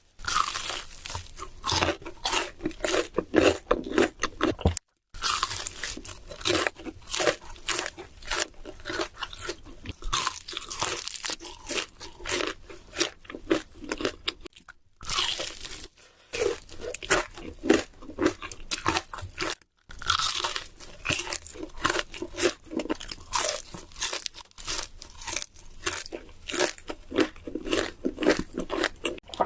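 Close-miked crunching and chewing of crunchy food: rapid, crisp bites and chews following each other densely, broken off abruptly by a few brief cuts to silence.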